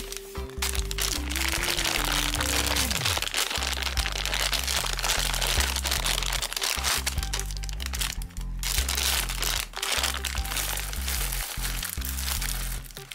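Plastic candy bag crinkling as Peanut M&M's are poured out, the candies rattling and crackling into a bowl of candy, over background music.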